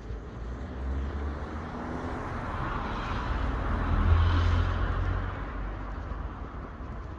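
A car driving past, its engine rumble and tyre noise swelling to a peak about four seconds in and then fading away.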